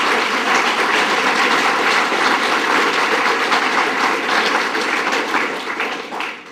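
Audience applauding, a steady crowd of clapping hands that dies away near the end.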